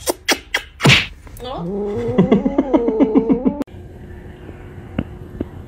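A few quick sneezes in the first second, the last one the loudest. Then about two seconds of a wavering voice that comes in short rapid pulses, ending abruptly.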